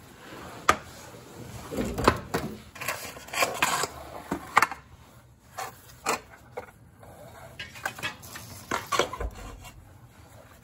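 Scattered sharp knocks and clicks with rubbing and scraping in between, from gloved hands working at the rusted steel floor pan and seat rail of a 1984 VW Rabbit.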